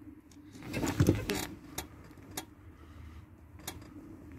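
Vivaro/Trafic van's brake pedal being pressed to push fluid into the clutch hydraulics for bleeding: a clunk and rattle about a second in, then a few light clicks.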